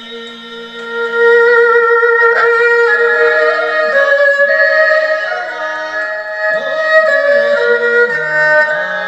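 Music: a melody line held on one note, then moving and sliding between notes over a sustained accompaniment, getting louder about a second in.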